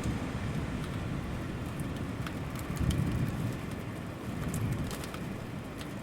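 Steady rain with scattered drops ticking, over a low rumble that swells about halfway through and again near the end.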